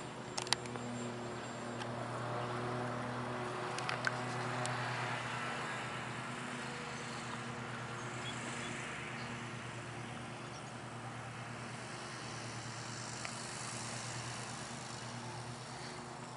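Radio-controlled model plane's engine and propeller droning steadily in flight, with a couple of sharp clicks about half a second in and again around four seconds.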